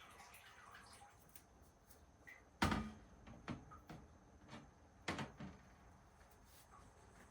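A few sharp household knocks and thuds, such as a cupboard or door being shut: a loud bang about two and a half seconds in, another about five seconds in, and lighter clicks between.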